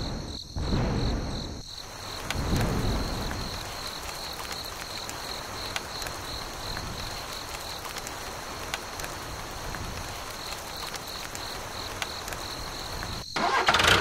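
Steady hiss of heavy rain falling, with a low rumble in the first two seconds and crickets chirping in an even pulse throughout; near the end the rain sound cuts off abruptly.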